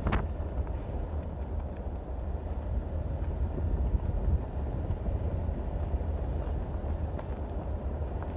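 Steady low rumble of a car driving along a road, tyre and engine noise with no change in pace.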